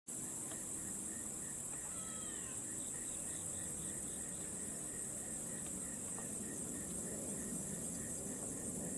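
Steady high-pitched hiss of an outdoor insect chorus. A short bird-like call sounds about two seconds in, and a soft chirp repeats about twice a second for a few seconds.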